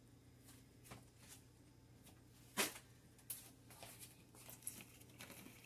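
Faint scattered clicks and light rustles as chopped jalapeño slices are picked off a plate and dropped into a pan of spaghetti and meat sauce, the loudest about two and a half seconds in and a run of smaller ones near the end.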